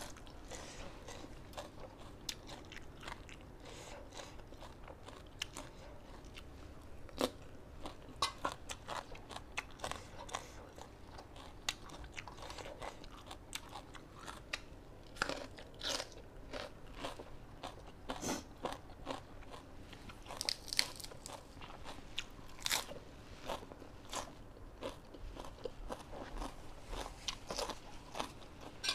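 A person chewing and crunching food close to the microphone: raw salad vegetables and spicy papaya salad with chicken feet, with many sharp, irregular crunches.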